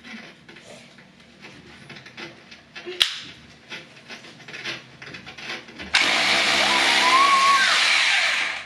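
White Horse hammer drill starting up suddenly about six seconds in and running steadily at full speed for about two and a half seconds as it drills into the wall, then cutting off. Before that there are only quiet handling knocks and one sharp click about three seconds in as the drill is set against the wall.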